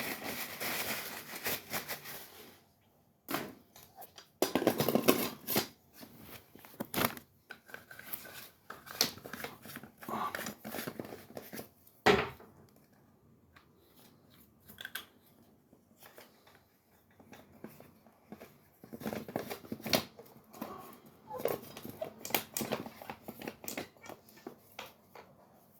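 Irregular handling noise of repair work: bouts of rustling and crinkling, with a few snips and clicks and quiet gaps between them. The sharpest click comes about twelve seconds in.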